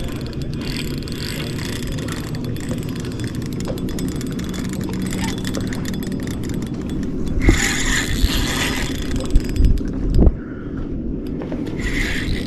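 Spinning fishing reel clicking steadily as a hooked redfish is played on light line, with a couple of low thumps in the second half.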